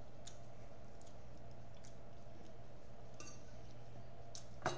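A fork clinking against a dinner plate: a short ringing clink about three seconds in and a sharper, louder one near the end, with a few faint eating ticks before them over a low steady hum.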